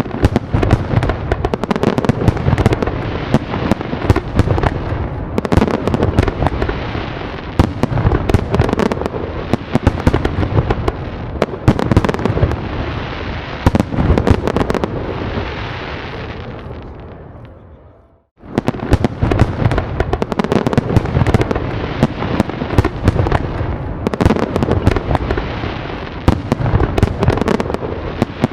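Fireworks going off in a dense barrage of bangs and crackles. It dies away about seventeen seconds in, drops out for a moment, then starts again just as densely.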